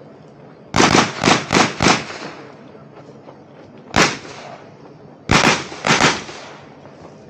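Gunshots from a competition shooter firing at targets: a fast string of about five shots around a second in, a single shot at about four seconds, then a few more in quick succession around five and a half to six seconds, each with a short echo.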